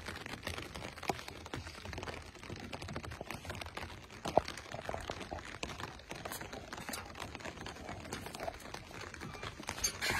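Light rain pattering on an umbrella canopy overhead: scattered drops tapping irregularly on the fabric, with one louder tap a little under halfway through.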